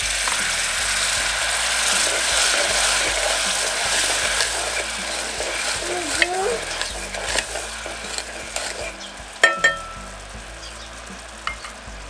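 Vinegar sizzling as it hits a hot pot of melted butter and sugar, stirred with a wooden spoon. The sizzle is loudest at first and dies down. Near the end there are a sharp knock and a short ring of the metal pot, then a lighter knock.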